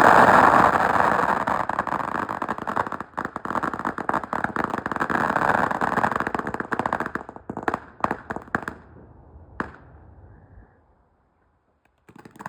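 Consumer fireworks crackling: a dense, rapid string of sharp pops for about eight seconds, thinning to a few scattered pops and dying away.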